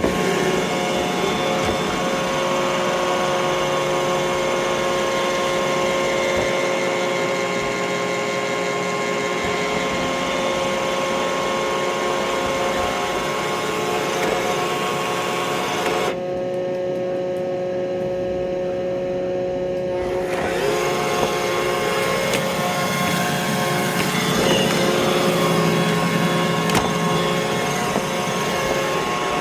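Roomba robot vacuum cleaner running: a steady motor whine over suction hiss. The high hiss drops away for a few seconds about midway, then returns.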